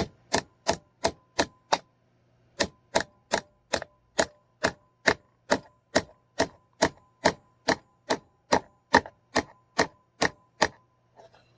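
Hammer steadily driving a nail into the wood of a birdhouse, about three ringing blows a second. A quick run of half a dozen blows is followed by a brief pause, then a long even series.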